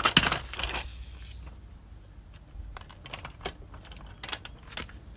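Metallic jangling and clatter, loud at first and fading within about a second and a half, followed by a handful of separate light clicks.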